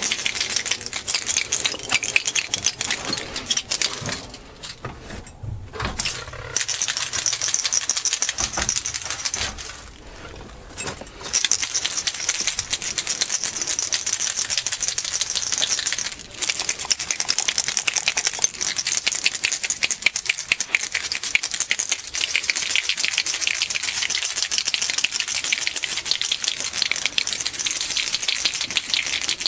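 Bottle of windshield primer being shaken hard, the mixing ball inside rattling rapidly and continuously, to mix the primer before it is applied to the glass. The shaking stops briefly twice, about four to six and nine to eleven seconds in.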